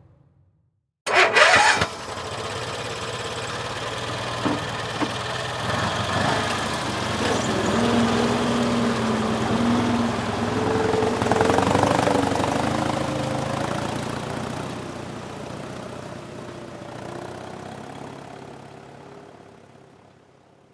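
A vehicle engine starting: a brief loud crank about a second in catches at once, and the engine then runs. Its pitch rises and falls a little in the middle before it fades out near the end.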